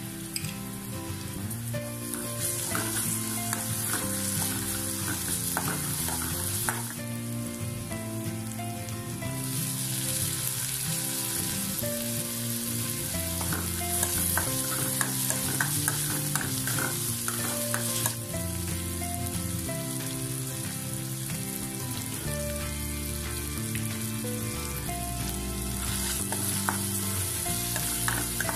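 Onions, ginger-garlic paste and tomatoes sizzling in hot oil in a metal kadai, stirred with a steel ladle that clicks and scrapes against the pan; the sizzle grows louder about a third of the way in. Quiet background music of held notes runs underneath.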